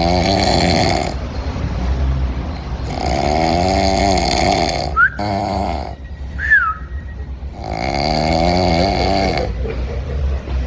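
Snoring: three long, rattling snores come about four seconds apart, each lasting one to two seconds. Two brief whistling squeaks fall in the pause after the second snore, over a steady low hum.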